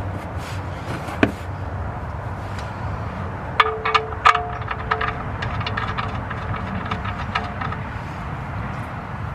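Metal tools and parts clinking during work on the oil drain plug: a sharp click about a second in, then a cluster of metallic clinks that ring briefly, between about three and a half and five seconds, and lighter ticks after, over a steady low hum.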